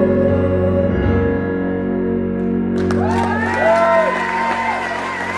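A Roland keyboard holds a final sustained chord as a song ends. About three seconds in, the audience breaks into applause with whistles and cheers.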